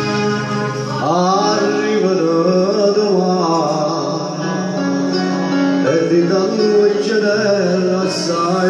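A man singing live into a microphone over amplified backing music; the voice comes in about a second in, after a held instrumental chord.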